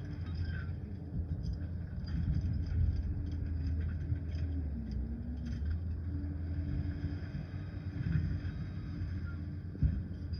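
Liebherr PR 746 crawler dozer's diesel engine running steadily under work, its pitch dipping briefly about five seconds in, with scattered short clanks.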